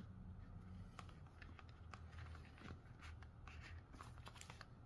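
Faint handling noise: scattered small clicks and light rustles of gear being moved about, over a low steady hum.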